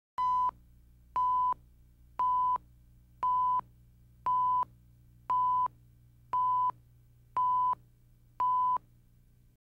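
Broadcast countdown leader beeps: nine short beeps of one steady pitch, one each second, marking the numbers of the countdown, over a faint low hum.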